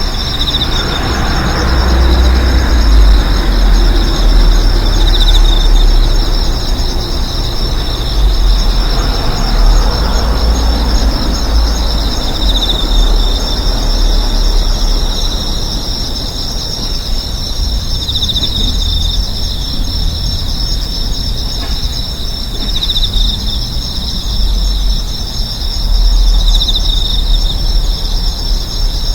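Street ambience: a low rumble of traffic, with vehicles swelling past twice in the first ten seconds or so. Over it, insects keep up a steady, high-pitched shrill.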